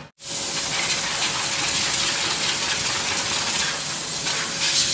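High-pressure water spray hissing steadily against a car during a detail wash, over a faint steady hum.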